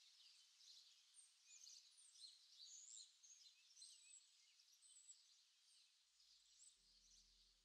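Faint woodland birdsong: several small birds calling at once, many short high chirps and trills overlapping. Low held music notes fade in near the end.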